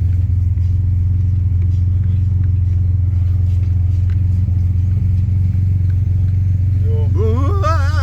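1938 SS Jaguar 3½ Litre's straight-six engine running steadily as the car drives along, a low drone heard from inside the open car. A voice cuts in near the end.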